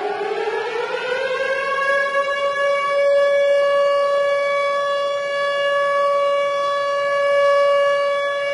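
Civil-defence warning siren winding up in pitch over the first two seconds, then holding one steady, loud tone.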